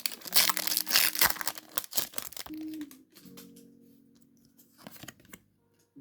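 Foil wrapper of a Pokémon trading card booster pack crinkling and tearing open for about the first two and a half seconds, then a few faint handling clicks, over soft background music.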